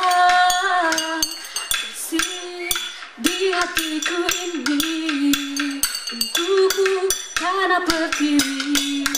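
A woman singing a held, wavering melody over a percussion ensemble, with a steady beat of sharp clinking metallic strikes about four a second.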